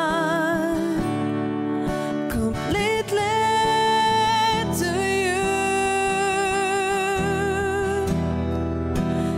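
A female and a male voice singing a slow worship song over a strummed acoustic guitar, holding long notes with vibrato and pausing briefly between phrases about two and a half seconds in.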